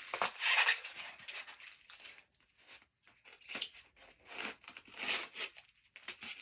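Styrofoam packing being pulled apart by hand: irregular rustling, scraping and tearing noises in short bursts, with a brief lull a little after two seconds in.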